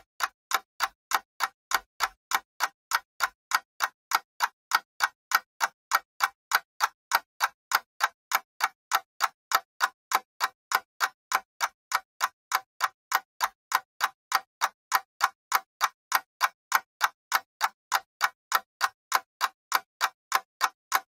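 Clock ticking steadily, evenly spaced sharp ticks at about three a second.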